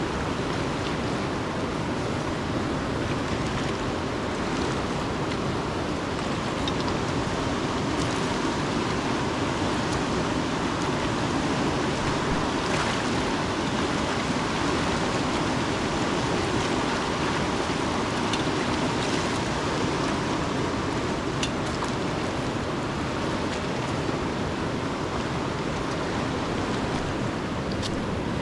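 Steady rushing of flowing water, with a few faint clicks.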